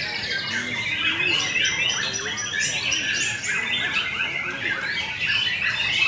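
Several caged white-rumped shamas (murai batu) singing at once, a dense, continuous tangle of fast overlapping whistles and trills.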